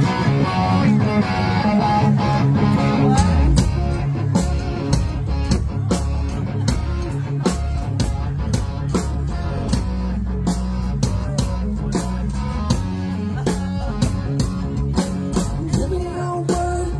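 A live rock band plays an instrumental passage, recorded on a cell phone. Guitar chords ring at first, and about three and a half seconds in a heavy low bass line and a steady beat take over.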